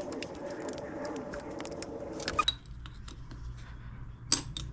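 Hand tools working on a dirt bike's bolts: a run of small metallic clicks and clinks, then a couple of sharper metal knocks, one about two seconds in and one near the end.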